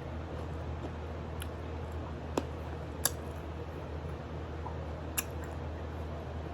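Eating adobo chicken feet: three short, sharp clicks of teeth on bone, a little over two seconds in, at about three seconds, and about five seconds in, over a steady low hum.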